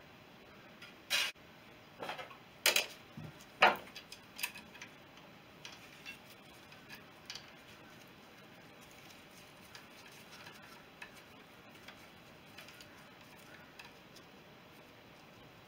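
A few sharp clicks and knocks of small metal parts being picked up and handled in the first few seconds, then only faint scattered ticks of fiddling with a small metal fitting.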